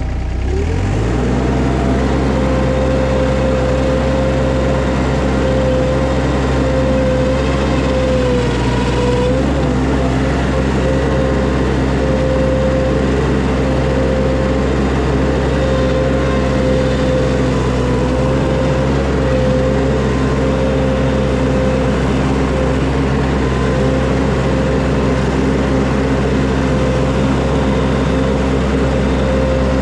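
Skid steer's diesel engine throttling up from idle in the first second, then running steadily at high revs, with a steady high whine over the engine note that dips briefly about eight seconds in.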